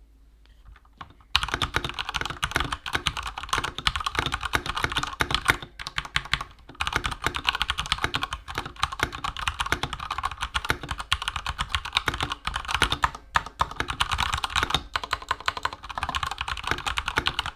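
Durgod K320 mechanical keyboard with Cherry MX Grey switches being typed on fast, a dense run of key clicks and clacks. It starts about a second in and pauses briefly near the middle.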